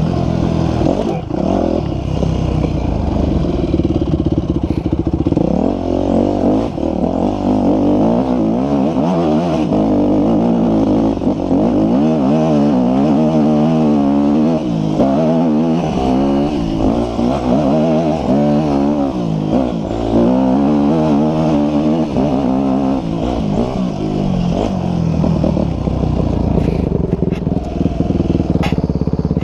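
Dirt bike engine running under way, its revs rising and falling repeatedly as the bike is ridden up a grassy hillside trail.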